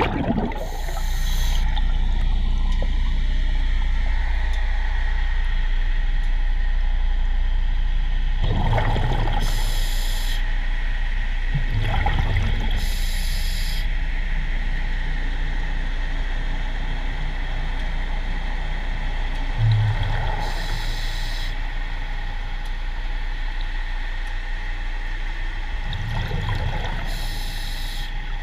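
Underwater recording of a diver breathing through a scuba regulator: a rush of breath and bubbles every several seconds over a steady low hum.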